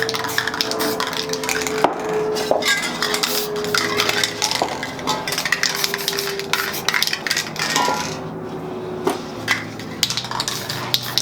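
Sped-up clatter of spray-painting work: quick clicks, scrapes and metallic clinks of spray cans and tools, with a few short squeaky tones.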